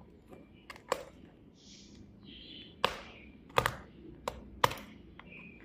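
Packaging and merchandise being handled: a handful of sharp taps and clicks, with short bursts of rustling between them.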